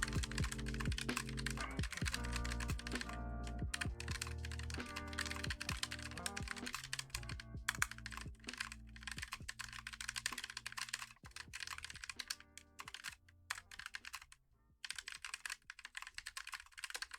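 Rapid, continuous typing on a Keychron K1 V4 low-profile mechanical keyboard with linear Gateron Red switches, a fast stream of light key clicks. Background music plays, louder in the first half.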